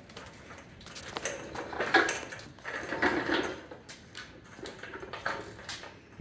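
Irregular metal clinks and scrapes of a wrench being fitted to and turned on a van's oil drain plug, loosening it.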